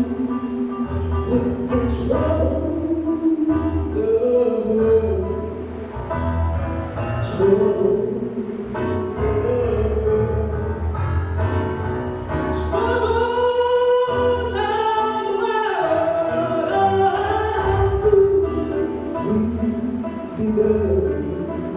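Music: a voice singing slow, sustained notes over a steady low accompaniment.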